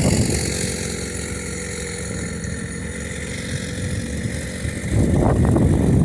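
Motor vehicle engine running steadily at a low hum; about five seconds in, a louder, rough low rumble starts.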